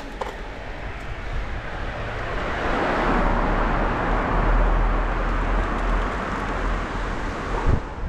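A motor vehicle passing on a wet road: a rising and fading rush of tyre hiss and low engine rumble, loudest mid-way. A short knock near the end.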